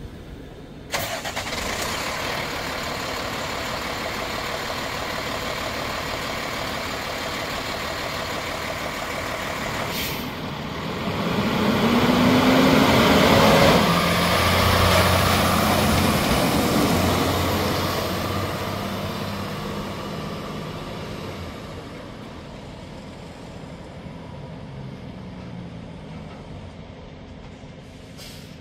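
Cummins ISL9 inline-six diesel in a Freightliner 108SD truck comes on suddenly about a second in and runs steadily. It speeds up and gets louder with a rising pitch around twelve to fourteen seconds, then eases back down to a quieter idle.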